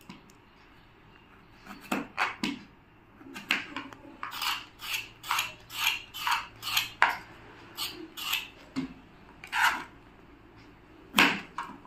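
Small kitchen knife shaving the skin off a pointed gourd (potol) in short scraping strokes, starting about two seconds in, quickest in the middle at about two a second, then sparser.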